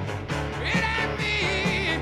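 Rock music with a steady drum beat and a wavering lead melody line.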